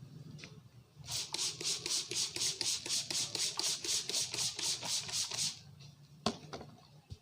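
Hands rubbing briskly over hair and scalp in a head massage, about five scratchy strokes a second for around four seconds. A single sharp click follows about six seconds in.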